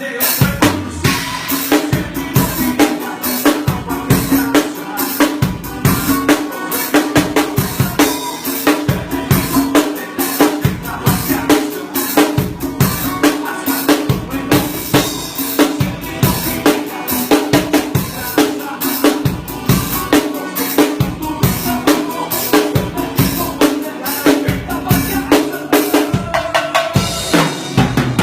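Drum kit played to a steady, busy beat over band music.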